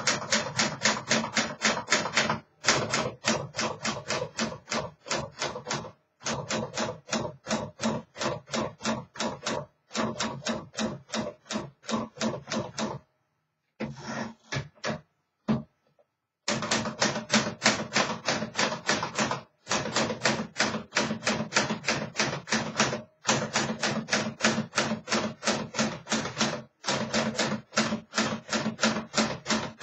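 1950 Smith Corona Clipper manual typewriter being typed on: fast runs of keystrokes, several a second, broken every few seconds by short pauses, with a sparser stretch of a few strokes about halfway.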